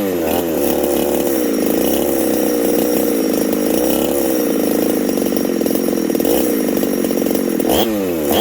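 Husqvarna 372XP two-stroke chainsaw engine, freshly built and run without bar or chain, settling back from a rev, running steadily, then blipped up and let drop back near the end as it is being tuned.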